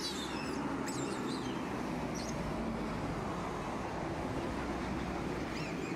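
Steady rumble of road traffic, with a few short, high chirps in the first couple of seconds.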